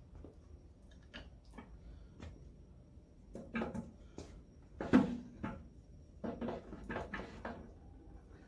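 Crankshaft and its gear knocking against the cast-iron crankcase of a McCormick-Deering type M 3 hp engine as it is worked out through the side opening: a series of metal clunks, the loudest about five seconds in.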